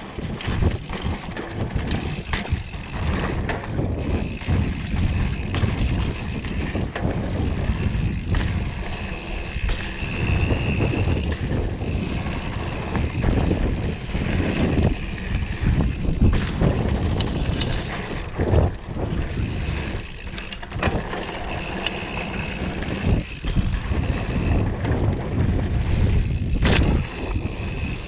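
Mountain bike riding fast down a dirt flow trail: wind buffeting the camera mic over the rolling of the knobby tyres on packed dirt. The bike gives frequent short knocks and rattles as it goes over bumps.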